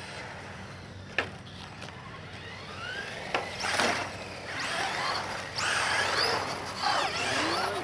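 Several battery-powered radio-controlled cars driving on asphalt: electric motor whines rise and fall in pitch as they speed up and slow down, over the rush of tyres on the pavement. A couple of sharp knocks, about one and three and a half seconds in, and the whole thing grows louder from about four seconds in.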